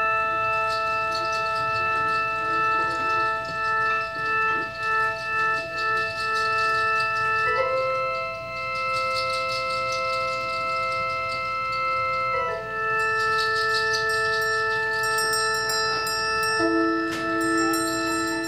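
Live ensemble music in long held chords, swelling and wavering early on. The chord changes about seven and a half seconds in and again about twelve and a half seconds in.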